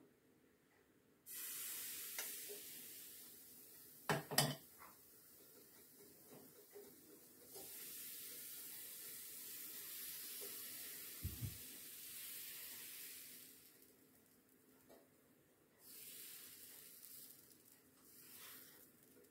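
Crêpe batter sizzling on the hot plate of an electric crêpe maker as it is poured and spread with a T-shaped spreader, in several hissing stretches. A couple of sharp knocks about four seconds in, and a soft thump later.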